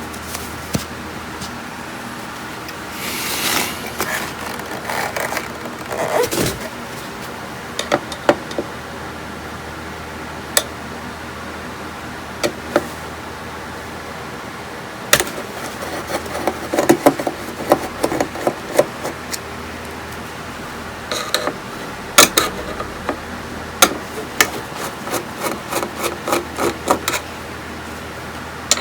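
Hand tools being worked on an electronics circuit board: scattered sharp clicks and taps with short bouts of scraping, and a quick run of clicks near the end, over a steady low hum. This is the work of removing the swollen power-supply capacitors.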